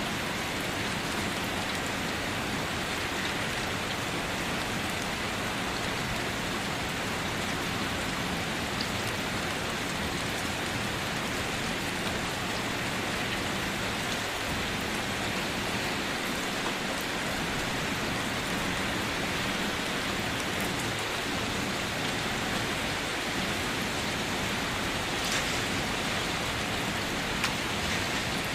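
Steady rain falling on surfaces, an even hiss with occasional faint individual drops.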